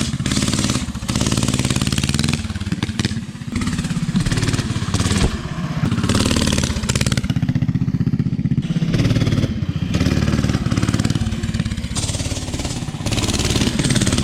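Mini bike's small engine running hard, its revs rising and falling as it is ridden.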